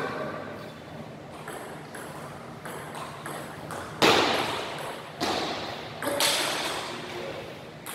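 Table tennis rally: the celluloid ball clicking off the bats and the table, ringing out in a tiled hall. Three louder hits about a second apart come in the second half.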